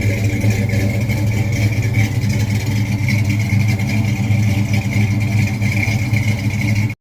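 A car engine running steadily and loudly, cutting off suddenly near the end.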